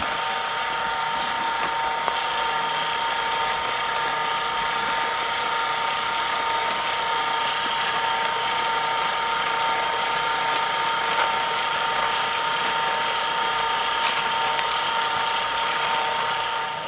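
Electric ice cream maker's motor churning the canister in its ice-packed bucket: a steady, even mechanical whine with a gear whir.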